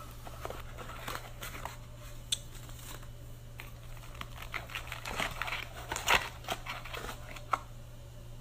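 Scattered crinkling and clicking handling noises over a steady low hum, the loudest cluster about six seconds in and one sharp click about seven and a half seconds in.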